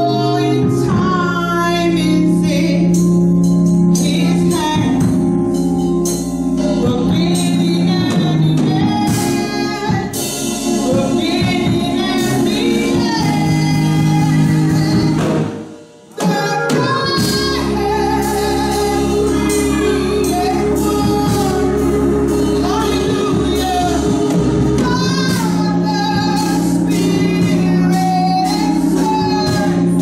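Two women singing a gospel song into microphones over instrumental backing of sustained chords and steady drum hits. The music drops out for a moment about halfway through, then comes back.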